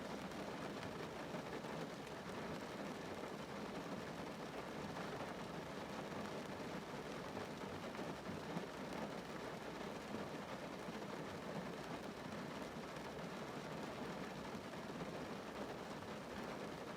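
Steady rain falling on a car's roof and glass, heard from inside the car: a dense, even patter with no breaks.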